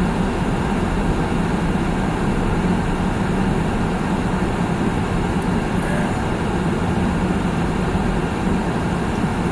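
Steady road noise inside a car's cabin while driving on snow-covered roads: engine and tyre rumble with a constant hiss.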